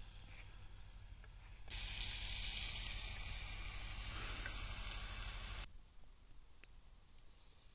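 Food frying in a pan over a campfire, sizzling. The sizzle is faint at first, grows loud about two seconds in, and cuts off suddenly just before six seconds.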